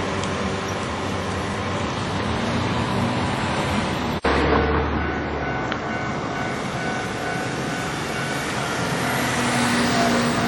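Steady rumble of a train passing a railway level crossing, mixed with road traffic. The sound drops out abruptly for an instant about four seconds in, then carries on.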